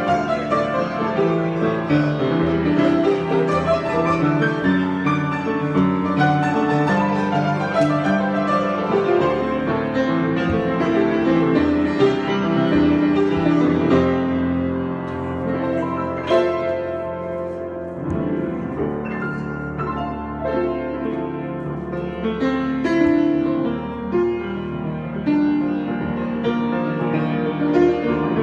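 Piano played in an improvisation, full chords and runs that thin out and soften a little about halfway through.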